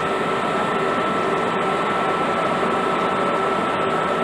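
Stationary NMBS class 11 electric locomotive running its cooling blowers: a steady whirring hum with a constant high whine over it.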